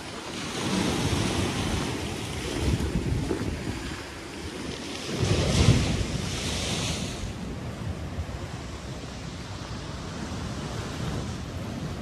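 Big sea waves breaking and washing up the beach in surges, the loudest crash a little before the middle, with wind rumbling on the microphone throughout.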